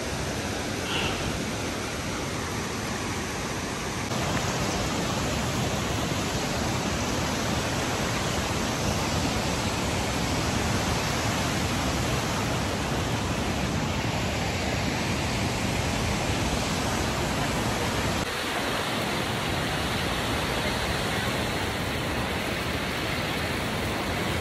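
Waterfall and river rapids rushing over granite boulders: a steady, even roar of falling water, a little louder about four seconds in.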